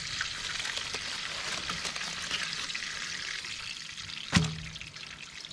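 Breaded smallmouth bass fillets sizzling in a pan of hot olive oil and butter: a steady hiss with small pops that slowly fades. One sharp knock about four seconds in.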